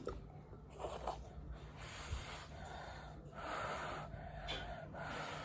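A child eating noodles, making a few airy breathing and sniffing sounds with mouth noises in between.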